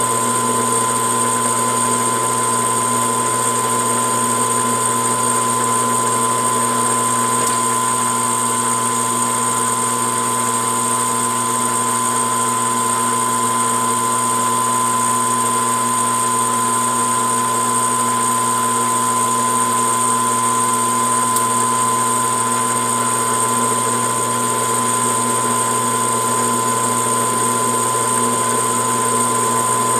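Metal lathe running steadily with a constant whine while single-point threading a steel rifle barrel.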